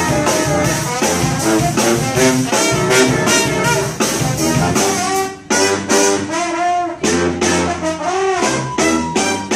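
Live brass band with saxophones, trumpet, sousaphone and drum kit playing an up-tempo jazz groove. About five seconds in the steady drumming thins out, leaving held horn notes over a low sousaphone line and scattered drum hits.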